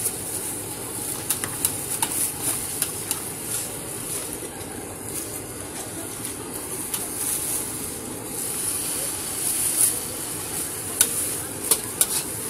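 Noodles frying in a large wok with a steady sizzle, and a metal spatula scraping and clacking against the pan several times.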